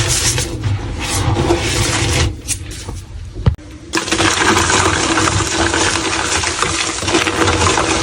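Blocks of gym chalk being crushed and crumbled, a dense crunching and crackling. It falls away about two and a half seconds in, with a single sharp click, then picks up again and goes on steadily from about four seconds in.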